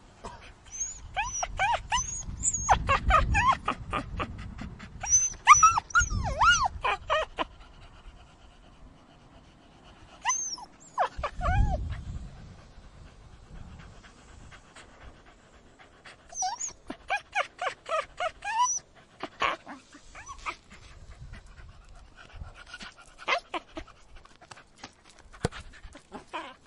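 A puppy whining and crying in repeated bouts of high, wavering whimpers, some rising and falling in pitch, with short pauses between bouts.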